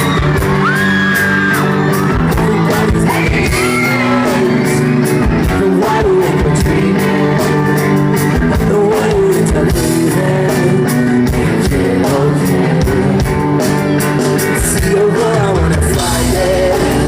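Live rock band playing an amplified song at a soundcheck: drums, electric guitars and a sung vocal.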